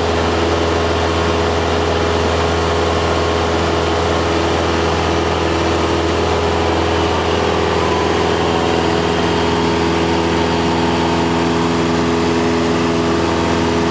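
Cessna 172's piston engine and propeller droning steadily, heard from inside the cabin in flight, with airflow noise over it.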